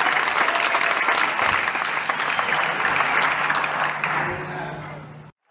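Audience applauding, a dense steady clapping that fades away near the end and then cuts off abruptly.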